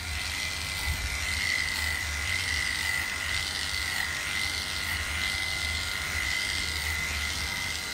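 Electric dog-grooming clippers, a number 10 blade under a slip-on comb, running with a steady high whine as they clip through a dog's curly coat.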